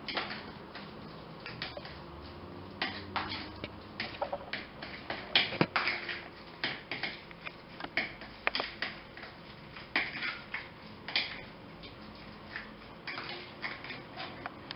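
A fork stirring and mashing a thick cottage cheese, egg and semolina dough in a small container, with irregular clicks and scrapes of the fork against the container.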